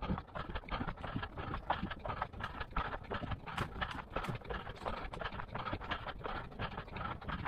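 Footsteps of a person running outdoors: a quick, steady run of footfalls.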